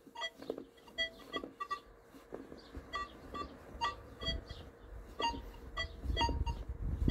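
Nokta Makro Legend multi-frequency metal detector giving short, broken target beeps at a few different pitches as a small silver coin sits about 20 cm beneath its coil, over a faint steady hum. The signal is patchy, too weak at this depth to be worth digging.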